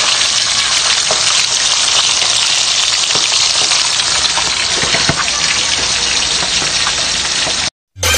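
Two whole tilapia frying in hot oil in a metal pan: a steady, loud sizzle with light crackling that cuts off suddenly near the end.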